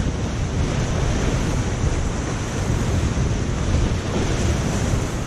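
Whitewater of a steep mountain river rushing and churning around a kayak in a rapid, a steady, loud rush heard from right in the boat, with water and wind buffeting the microphone.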